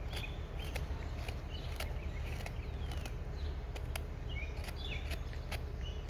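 Songbirds chirping in short calls, over a steady low outdoor rumble and a run of sharp ticks about twice a second.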